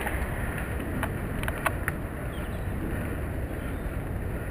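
Wind rushing over the microphone with low rumble from a bicycle rolling along a road, and a few short, faint clicks about one and a half to two seconds in.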